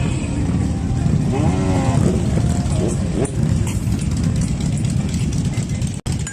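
Vehicle engine running with a steady low rumble, and a brief voice about a second and a half in. The sound cuts out for an instant near the end.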